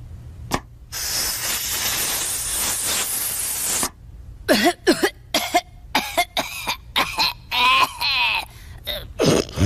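A cartoon boy's voice, Bart Simpson's, takes a long hissing breath and then breaks into a fit of harsh coughing, about a dozen coughs in quick succession. He is choking on cigarette smoke.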